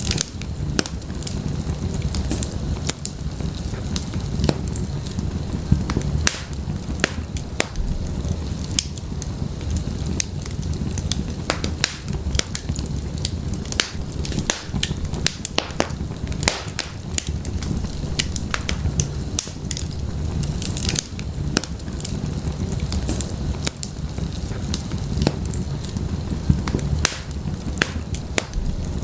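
Wood fire burning in an open fireplace: the flames make a steady low rumble, with dense, irregular crackles and pops from the burning firewood.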